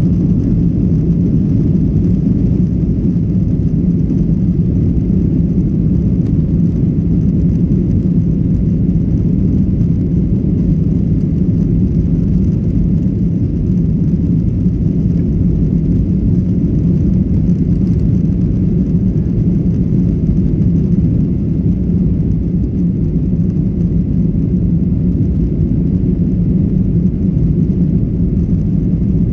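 Passenger jet airliner noise heard from inside the cabin: a steady, unbroken low rumble with a hum near the bottom, from the engines and airframe during the departure from Miyazaki.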